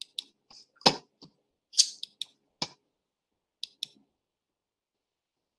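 Computer mouse clicks: about nine short, scattered clicks, stopping about four seconds in.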